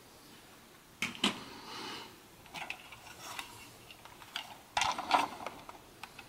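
Hard plastic clicks and clatters from LEGO pieces being handled: a sharp click about a second in, scattered clicks after it, and a louder run of clattering near the five-second mark.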